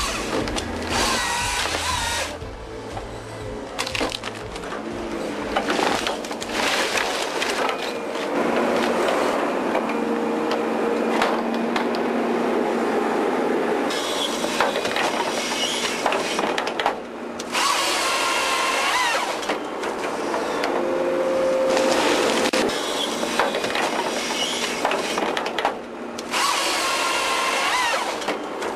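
Forestry harvesting head at work on an excavator: the machine's engine and hydraulics run under load while the head's chain saw cuts through trunks, its pitch rising and falling. The sound changes abruptly several times.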